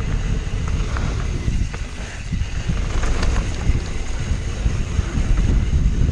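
Wind buffeting the microphone of a camera on a descending mountain bike, over the steady rumble of knobby tyres rolling on packed dirt, with scattered small clicks and rattles from the bike and loose stones.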